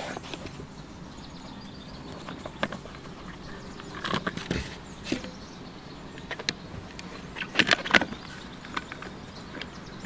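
Camera gear being handled in an open padded camera backpack: scattered clicks, knocks and fabric rustles as a long telephoto lens in a camouflage cover is moved around in the bag, with a cluster about four seconds in and the loudest knocks near eight seconds.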